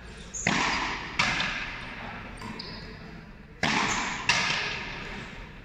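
Frontenis rally: four sharp cracks of the rubber ball, in two pairs of racket strike and ball hitting the front wall, each ringing out in the frontón hall's long echo.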